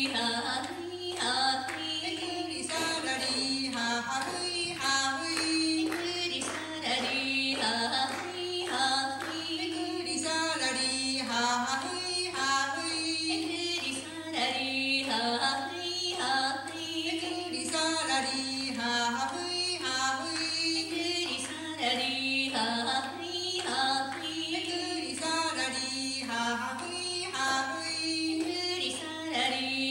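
Women singing a traditional Ainu song, unaccompanied, in short rhythmically repeated phrases that carry on without a break.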